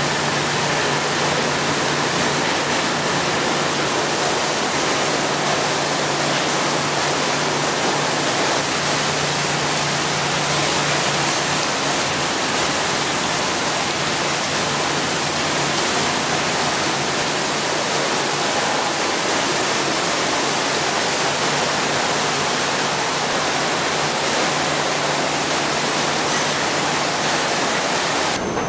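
Fixed nozzles spraying water onto a bare car body in a paint-shop pretreatment wash booth: a steady rushing hiss of spray and run-off, with a steady low machine hum beneath.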